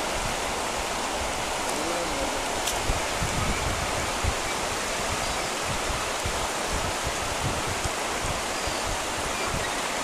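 Fast-flowing river rushing over shallow riffles, a steady wash of water noise.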